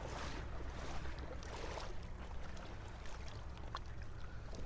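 Outdoor water-edge noise: a steady low wind rumble on the microphone over water lapping at the river's edge, with a few faint clicks near the end.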